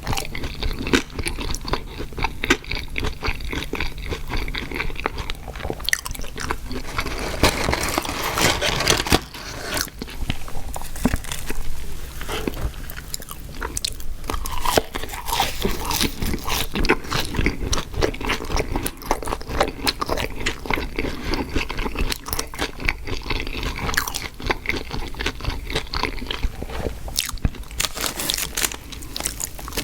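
Close-miked chewing and crunching of fast food: dense, continuous crisp bites and mouth sounds.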